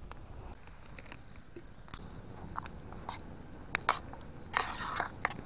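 Metal spoon clicking and scraping against a camping pot as food is stirred: a few sharp clicks a little before four seconds in, then a short rustle.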